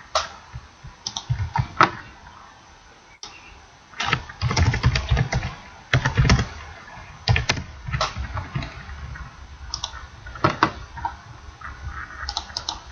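Computer keyboard typing: irregular keystrokes in quick clusters with short pauses between them.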